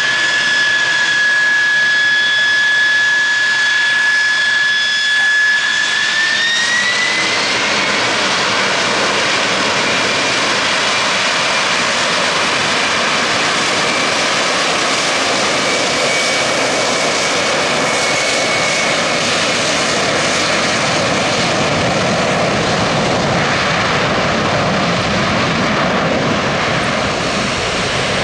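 McDonnell Douglas MD-11 trijet's engines spooling up for takeoff: a steady high whine that rises in pitch about six seconds in, then the loud, steady rush of the engines at takeoff power through the takeoff roll.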